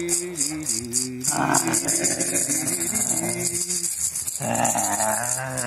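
A hand rattle shaken fast over a man's low, drawn-out vocal sounds. The shaking starts as quick separate strokes and runs together into one continuous rattle about a second in.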